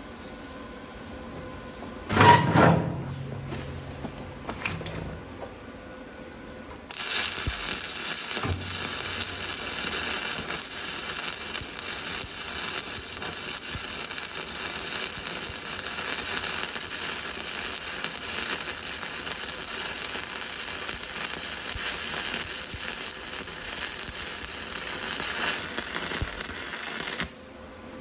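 Stick-welding arc crackling steadily as a 7018 electrode runs a weld pass over a root pass, starting about seven seconds in and cutting off abruptly about a second before the end. A loud, brief clank comes about two seconds in.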